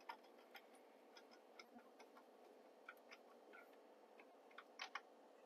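Faint, irregular small metal clicks and ticks of an insulated screwdriver tightening a ground screw on a breaker panel's ground bar, with a couple of slightly louder clicks near the end.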